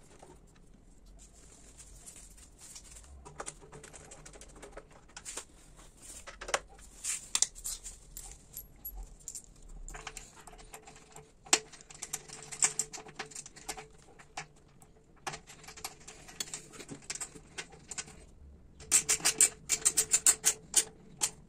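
Small metallic clicks, taps and rattles of hand tools and bolts as a motorcycle fuel tank is bolted down and tightened. Near the end comes a dense run of quick clicks.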